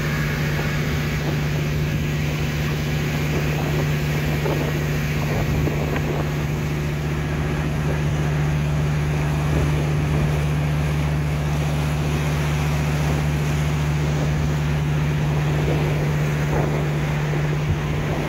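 A boat's engine running at a steady low drone, heard on board, with wind noise on the microphone.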